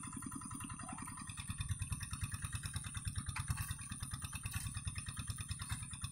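Single-cylinder diesel engine of a Quick two-wheel hand tractor with a Yanmar engine, chugging steadily with a rapid, even beat while pulling a plow through wet rice-field soil.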